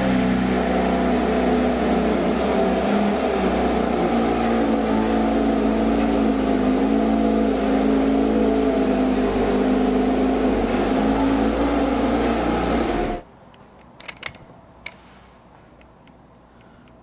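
Porsche 992 GT3's naturally aspirated flat-six idling steadily through its factory exhaust, cutting off abruptly about 13 seconds in. A few faint clicks follow.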